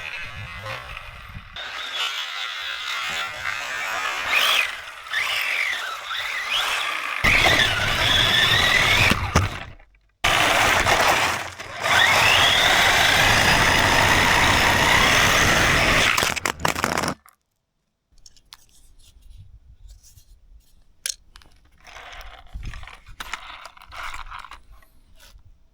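Radio-controlled car driving over loose ground: its motor whines up and down while the tyres scrape and crunch. The sound cuts off abruptly about ten seconds in and again a few seconds later. It is followed by quieter scattered clicks and handling noises.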